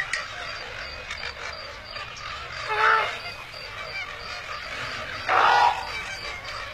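Two short animal calls, the first about three seconds in and a longer one about five seconds in, over a quiet wetland ambience with a faint, steady, high pulsing.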